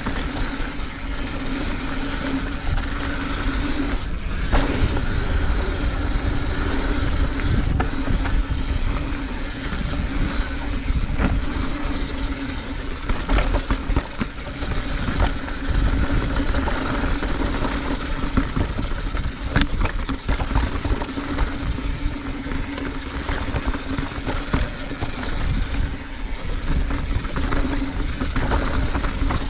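Santa Cruz V10 downhill mountain bike ridden fast down a dirt trail: a steady low rumble of wind on the microphone and tyres on dirt, with frequent sharp clicks and clatter from the bike over rocks and roots.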